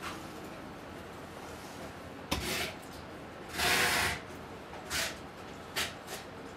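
Steady open-plan office room tone with computer fan noise, broken by a few short handling noises: a click with a brief scrape a little after two seconds in, a louder scrape about half a second long in the middle, then two shorter ones near the end.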